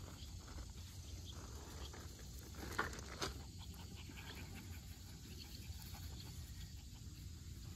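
Faint sounds of a six-week-old Welsh Terrier puppy mouthing a rubber flip-flop in the grass, with a couple of short clicks about three seconds in, over a low steady rumble.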